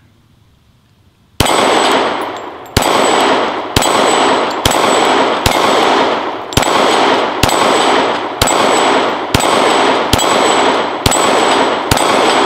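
Glock 23 .40 S&W pistol firing about a dozen shots at a steady pace of roughly one a second, starting about a second and a half in. Each shot is answered by the clang of a steel dueling-tree plate being hit and swung over, leaving a high metallic ring after every report.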